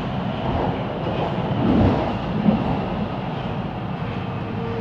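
Siemens Inspiro metro train running between stations, heard from inside the car as a steady rumble of wheels on rail. It swells briefly a little before two seconds in, with a single louder knock about halfway through.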